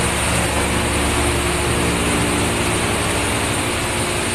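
Ship's engine-room machinery running steadily: a loud, constant mechanical drone with a steady hum under an even hiss.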